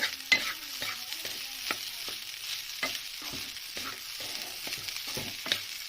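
Egg fried rice sizzling in a kadai as it is stirred, with irregular scrapes and clicks of the spatula against the pan.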